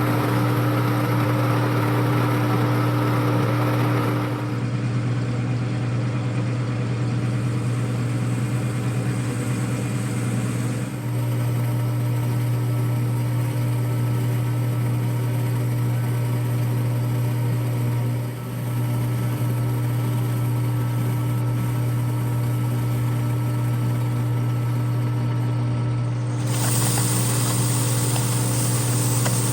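Manual metal lathe running with a steady motor hum. The higher-pitched noise over the hum changes abruptly about four, eleven and twenty-six seconds in.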